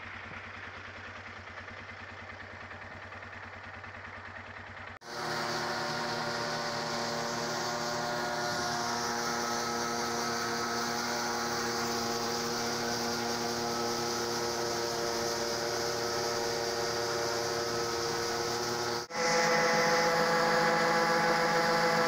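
Steady drone of a combine harvester and the tractor running alongside it, with the combine's unloading auger pouring shelled corn into a grain cart, giving several steady machine tones over a noisy hiss. The sound cuts abruptly about five seconds in, where it becomes louder with more tones, and again near the end, where it is louder still.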